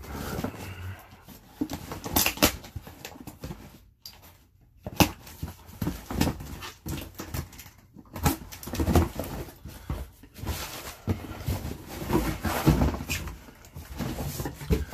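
A cardboard shipping box and shoe box being opened and handled: irregular tearing, scraping and rustling with sharp clicks, pausing briefly about four seconds in.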